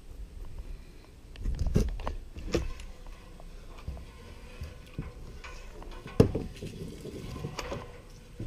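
Irregular knocks and thumps with rustling handling noise as someone climbs about on wooden scaffolding and roof framing. The loudest knock comes about six seconds in.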